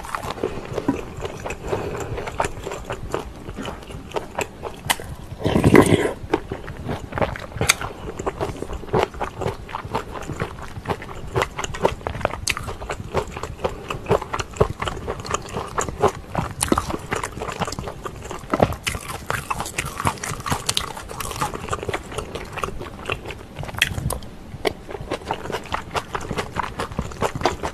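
Close-miked eating of pork kimchi stew: continuous wet chewing and biting sounds with many short clicks, and one louder burst about six seconds in.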